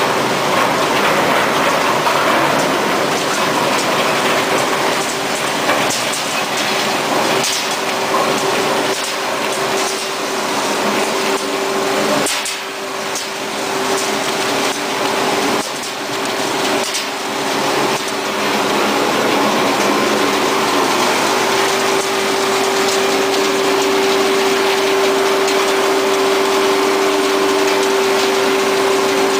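ZERMA ZWS 1700 single-shaft wood shredder line running while it grinds wood pallets: a loud, continuous machine din with a steady hum and irregular cracks and knocks, louder hum in the second half.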